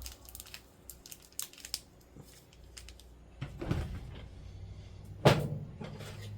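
Small plastic toy pieces being handled: light clicks and scrapes, then one sharp knock about five seconds in.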